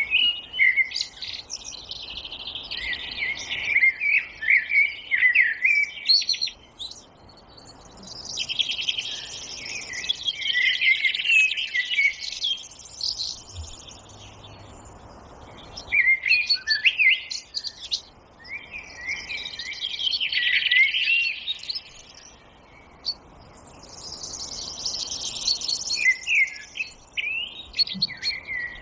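Songbirds singing: four long bouts of rapid chirps and whistled notes, each a few seconds long, with short pauses between them.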